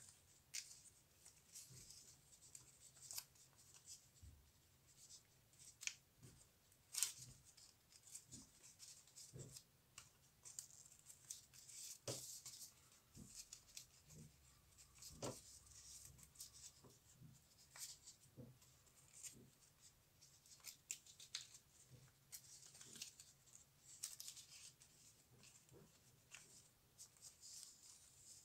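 Faint rustling and crinkling of origami paper being folded and tucked by hand, with scattered soft clicks as the flaps are creased and pushed into place.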